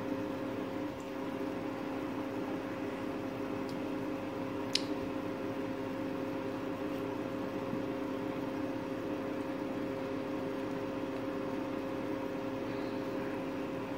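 Steady mechanical hum of an appliance motor, unchanging throughout, with one short sharp click about five seconds in.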